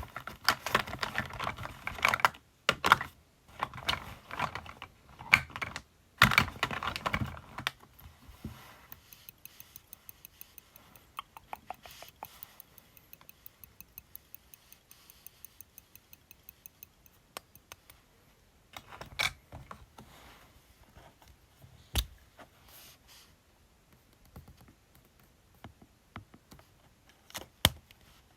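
Fingernails tapping and scratching on plastic makeup cases and cosmetic packaging, a dense, clicky patter at first. It settles into a long run of light, quick, even nail taps, then turns to scattered taps with a few sharper clicks.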